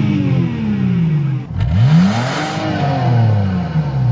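Car engine revved hard: the revs fall away, then a second sharp rev about one and a half seconds in that slowly drops back.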